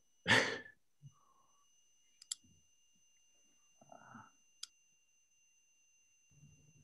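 Two sharp clicks about two seconds apart over a faint, steady, high-pitched whine, after a short loud burst right at the start.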